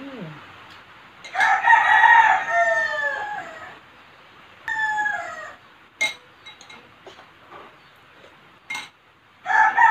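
A rooster crowing: one long crow starting about a second in that falls in pitch at its end, a shorter call around the middle, and another crow beginning near the end. A couple of short sharp clicks fall in between.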